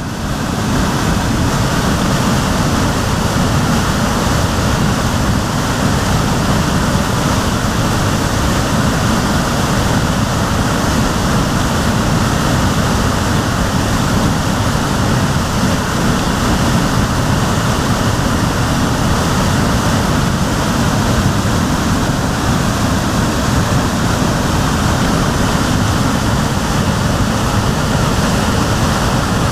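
Waterfall pouring steadily, heard from its foot: a dense, even rush of falling water, heaviest in the low rumble.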